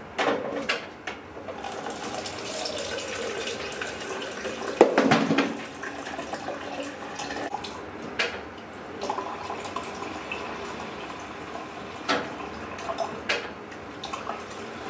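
Cold water running from a water dispenser into a shaker cup as it fills. There is a louder bump about five seconds in and a few sharp clicks later.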